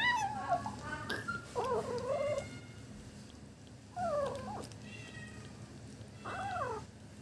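Kitten making short, wavering 'yum yum' vocalizations while eating fish, several calls a few seconds apart.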